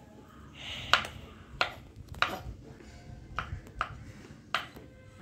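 Kitchen knife chopping white mushrooms and onion on a wooden cutting board: a run of about six irregular sharp knocks as the blade hits the board.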